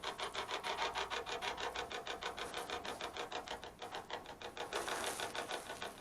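Steady rhythmic pulsing static, about six even pulses a second, with a brief hissy swell near the end.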